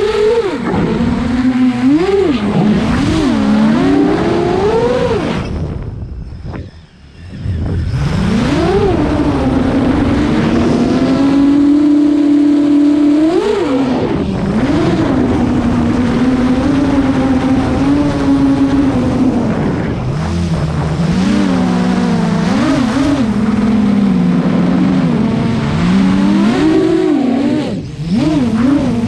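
FPV quadcopter's brushless motors and 8-inch props whining, heard from the camera on its frame. The pitch swoops up and down as the throttle is worked. The sound nearly cuts out about six seconds in and comes back within a second or two, with another short dip near the end.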